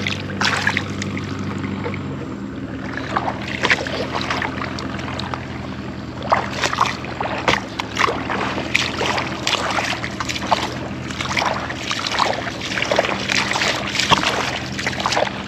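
Repeated splashes of someone wading through shallow water, over the steady low hum of an engine.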